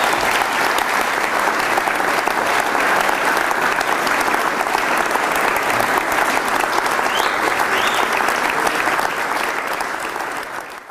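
Large seated audience applauding steadily, the clapping fading out near the end.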